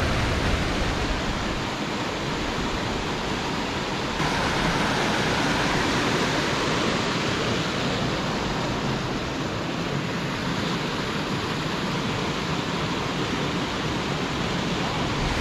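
Water rushing steadily over a rock weir, the white-water noise growing a little brighter about four seconds in.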